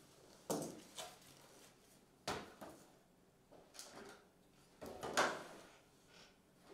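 Handling noises on a desk mat: a series of short knocks and bumps as objects are picked up, moved and set down, loudest about five seconds in.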